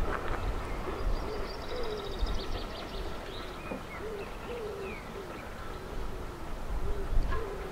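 A pigeon cooing in low repeated phrases, with small birds chirping and a short high trill about two seconds in, over a low steady rumble.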